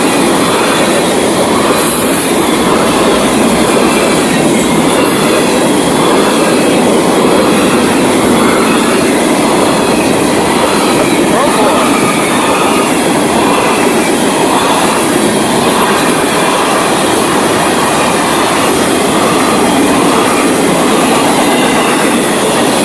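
Freight train cars rolling past at close range: a loud, steady rumble of wheels on rail with a clickety-clack that repeats about once a second.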